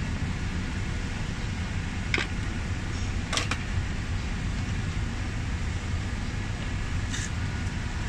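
Steady low background rumble, with a few light clicks and taps of plastic parts and wiring being handled at a car's steering column: about two, three and a half, and seven seconds in.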